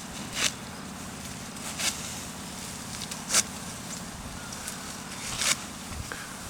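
Rice stalks being cut by hand with a sickle: four sharp, short crunching strokes about every one and a half seconds, over a steady low hum.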